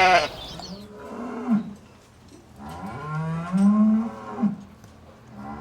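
Giraffe giving two low, drawn-out calls, a short one about a second in and a longer one near the middle.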